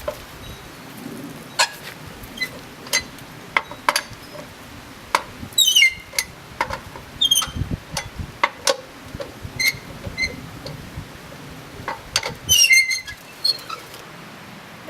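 Lug wrench turning lug nuts off a car wheel: sharp metal clicks and clinks about once a second, with three short squeaks that fall in pitch.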